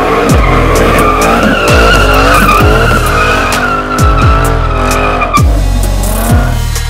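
Tyres squealing as a Ford Mustang 5.0 GT slides sideways; the squeal wavers and dies away about five and a half seconds in. Electronic music with deep, falling bass notes plays over it.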